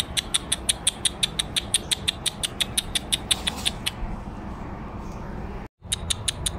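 Rapid, even clicking, about five clicks a second, made to call cats. It stops about four seconds in, leaving a faint hiss, and starts again near the end after a brief cut-out.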